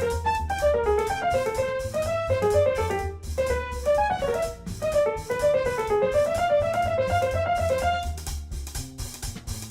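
Background music: a piano-like melody in quick runs of notes rising and falling, over a drum kit and bass.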